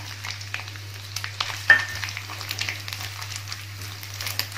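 Chopped coconut pieces frying in ghee in a non-stick pan, crackling and sizzling as a spatula stirs them, with one sharper click a little under two seconds in.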